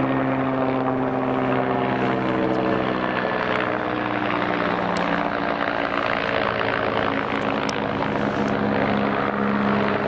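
Mi-8-type military helicopter flying low overhead: its rotor and twin turbine engines make a steady drone with a whine of even tones.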